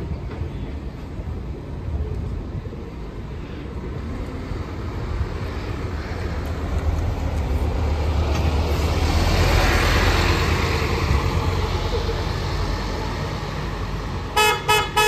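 Alexander Dennis Enviro400 double-decker bus driving slowly past close by: its engine rumble and tyre noise build to their loudest about ten seconds in, then fade as it pulls away. Near the end comes a quick run of about six horn beeps.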